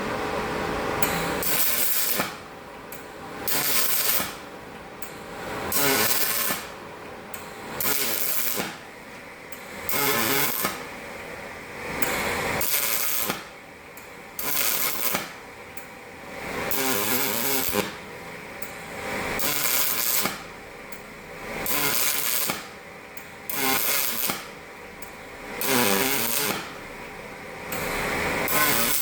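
Aluminium MIG welding with argon shielding gas, done in short repeated stitch runs. Each burst of arc crackle lasts about a second, with a brief pause between, roughly every two seconds.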